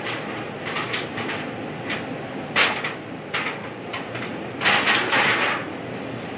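Steady rushing of a commercial kitchen exhaust hood fan, with scattered clatters and two louder rustling scrapes of aluminum foil pans being handled, about two and a half and five seconds in.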